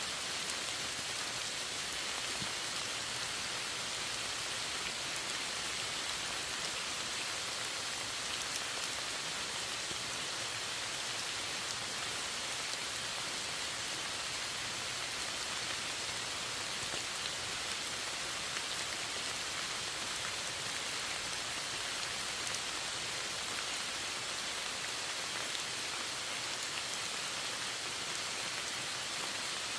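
Steady rain falling, an even hiss of many drops on a surface with scattered individual drop ticks.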